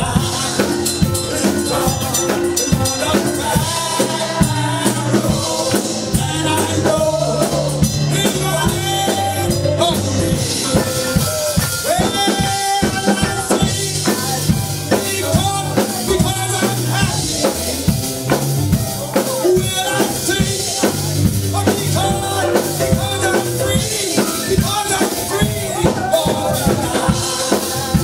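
Live church praise music: a drum kit keeping a steady beat under keyboard, with a man's voice singing over it through the sound system.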